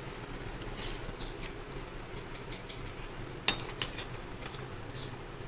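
A spoon clinking and scraping against a pan of cooking tomato chutney, in a few short strokes with the sharpest clink about three and a half seconds in, over a steady low background.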